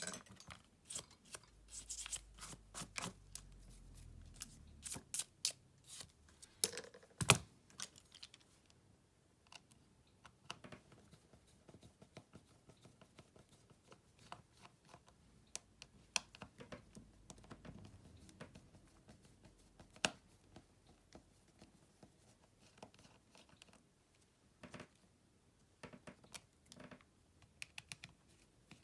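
Small hand tools clicking, scraping and tapping against the plastic and metal parts of a smartphone being taken apart. A quick run of sharp clicks in the first several seconds, one louder click about seven seconds in, then scattered ticks.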